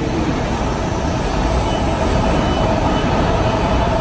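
BART train cars rolling past alongside the platform: a steady rail rumble, with a faint steady whine coming up about halfway through.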